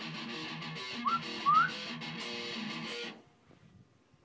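Guitar strummed in a quick, even rhythm, with two short rising whistles about a second and a half in that stand out as the loudest sounds; the playing stops about three seconds in.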